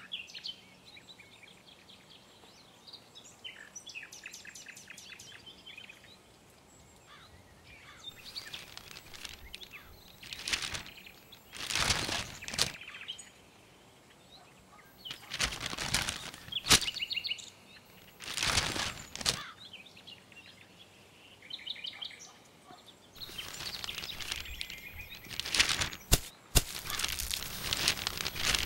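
Birds chirping in short trills, then several bursts of paper and plastic rustling and crinkling as a newspaper and scattered rubbish are handled, the loudest about twelve seconds in, with a run of them near the end.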